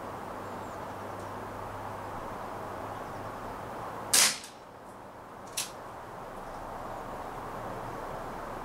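A single shot from a CO2-powered Umarex Smith & Wesson M29 replica revolver firing a flat-nose pellet, a sharp crack about four seconds in. About a second and a half later comes a shorter, fainter click.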